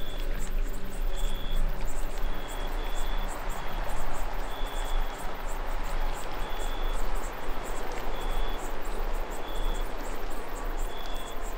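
Ambient background soundtrack: a steady noisy wash with short high chirps repeating every second or so, and faint held tones that come in near the end.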